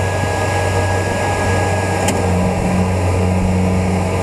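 Kubota combine harvester's diesel engine running steadily under load, its crawler tracks straining to climb out of sticky mud. One sharp click sounds about halfway through.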